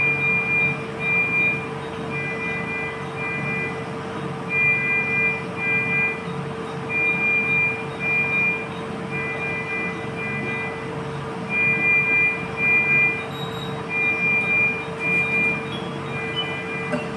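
Medical monitor alarm in a NICU beeping in a repeating pattern: groups of two or three short high beeps every couple of seconds, over a steady hum of ward equipment.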